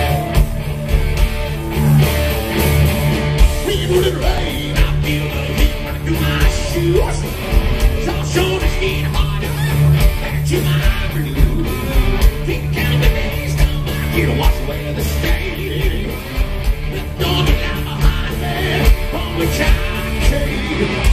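Live hard-rock band playing loudly through the PA: electric guitars over a steady drum beat.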